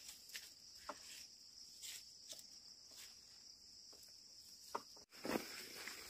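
Insects droning steadily at a high pitch, with a few scattered soft knocks and rustles from the ploughing. The sound cuts out for an instant about five seconds in.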